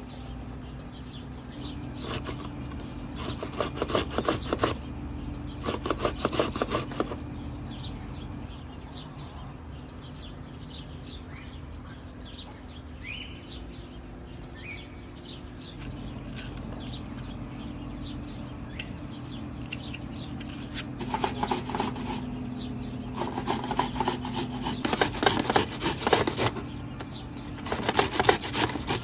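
Metal box grater rasping in quick, even strokes: a tomato grated in two bursts in the first several seconds, then a red onion grated in bursts near the end, with a quieter stretch between.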